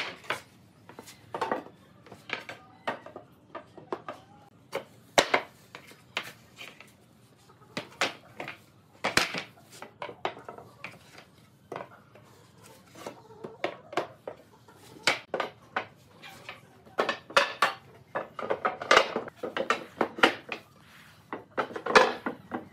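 Loose pine boards knocking and clattering against one another and the wooden bed frame as they are picked up and laid down as slats: a string of irregular wooden clacks, busier in the second half.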